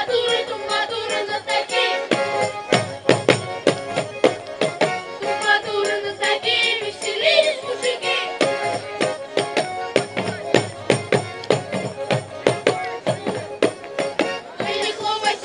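Live folk song sung by a small group of voices into microphones, over hand percussion shaken and struck in a steady beat.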